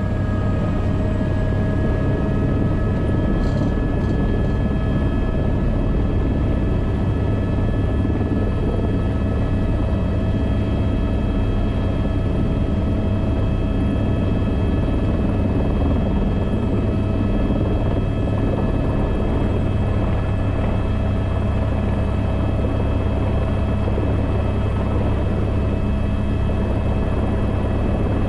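Airbus H125 (Esquilo B3) helicopter running steadily, its turbine and rotor making a constant whine of several steady tones over a low rumble.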